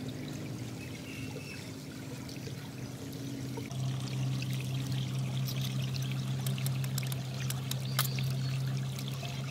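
Water trickling and pouring in a shallow muddy channel, over a steady low hum that shifts in pitch about four seconds in. In the second half come small sharp clicks and taps of hands working at a wire-mesh trap in the water.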